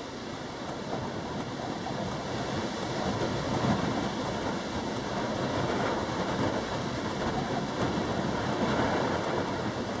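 Strong wind blowing in gusts, a steady rushing noise that swells about three seconds in and eases off near the end.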